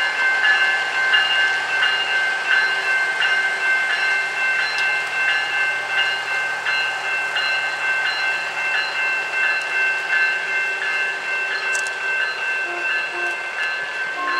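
Sonoma-Marin SMART diesel multiple unit rolling slowly through a grade crossing, its engine and wheels making a low rumble. A grade-crossing warning bell rings steadily over it, about one and a half strokes a second.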